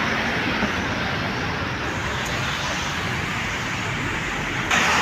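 Steady hiss of heavy rain mixed with the wet rush of road traffic, growing louder near the end.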